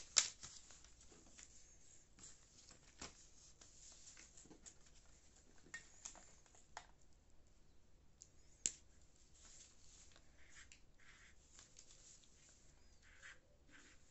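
A sheet of paper being handled on a craft mat: crisp rustles and sharp clicks just after the start, then faint scattered taps and rustles, with one sharp click a little past halfway.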